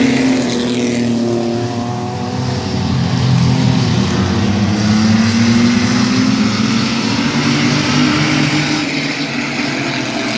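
Several mini-truck race engines running at speed around a short oval. The engine pitch dips and rises as the trucks go around, a steady continuous drone with no break.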